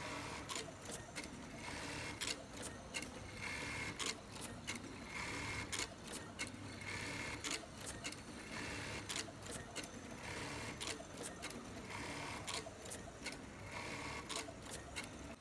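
FOXSEW FX-378-1903 automatic button-feeding button sewing machine at work, sewing on buttons in repeated short bursts of high-speed stitching about a second long. Many sharp clicks from the machine's mechanism run between the bursts, over a steady low hum.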